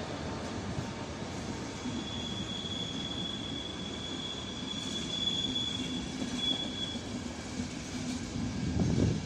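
Electric-hauled passenger train running out of a station over curved track, its coaches rumbling, with the wheels squealing in one steady high-pitched tone from about two seconds in to about seven. Louder low rumbling near the end.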